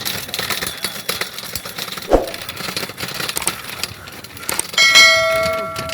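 Clatter and knocks of equipment being handled, with a sharp thump about two seconds in. Near the end comes a loud steady tone held for about a second and a half.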